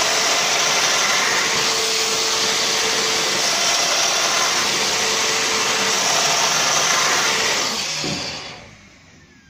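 Festool Domino joiner running steadily as it plunges an 8mm cutter into the end of a beech door rail, then switched off and spinning down over about a second near the end.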